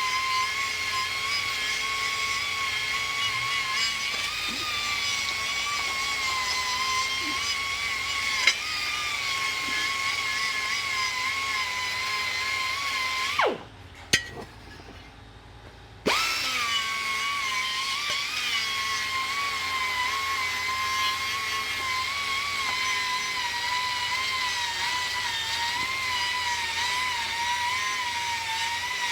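Handheld power tool running at a steady whine, wound down about 13 seconds in and started again a couple of seconds later, its pitch sliding down as it stops and up as it restarts.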